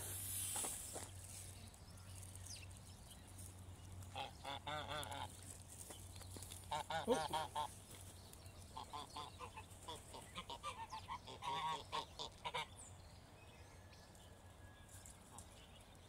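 Waterfowl honking close by: several bursts of repeated, wavering honks, with quieter gaps between them.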